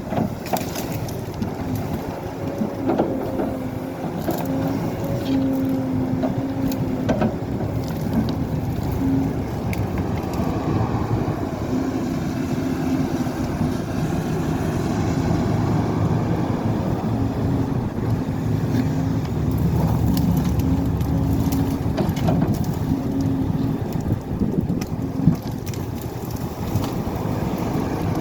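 Diesel excavator at work: the engine runs steadily under load, with scattered knocks and crunching as material is dug and moved.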